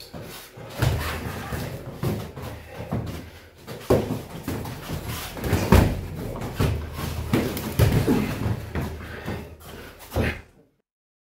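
Boxing gloves thudding against gloves and padded headgear in heavyweight sparring: an irregular run of punches landing, the hardest about four and six seconds in. The sound cuts off abruptly near the end.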